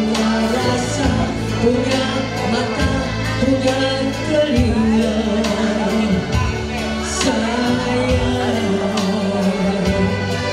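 A woman singing a nostalgic Indonesian pop song (tembang kenangan) into a microphone, her voice amplified over backing music with a steady beat.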